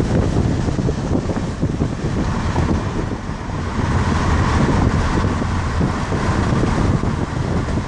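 Wind buffeting the microphone over the steady rumble of road noise from a moving car.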